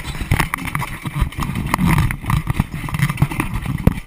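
Wooden roller coaster train being hauled up the lift hill by its chain: a steady rumbling clatter broken by a run of irregular sharp clacks.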